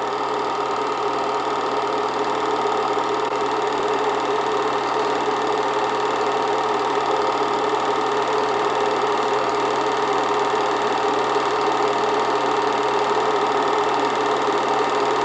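8mm movie projector running: a steady, even mechanical whir with constant tones.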